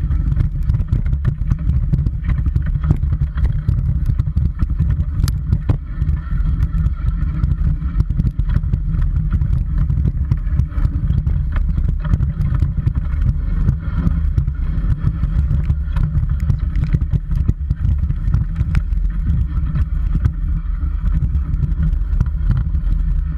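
Dog scooter rolling fast over a rough gravel and dirt trail: a steady low rumble from the wheels, with constant rattling and sharp clicks from stones and the frame.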